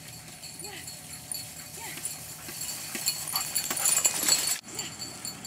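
A dog-drawn tricycle rolling over a grassy trail, its rattling clatter growing louder as it comes close and passes, then cut off abruptly near the end. A faint short call repeats about once a second underneath.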